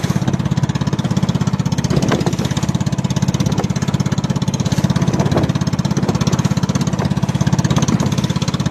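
Small fishing boat's engine running steadily underway, with a fast, even pulsing beat.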